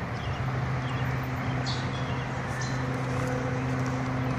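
A horse's hooves clopping now and then as a few scattered clicks, over a steady low hum.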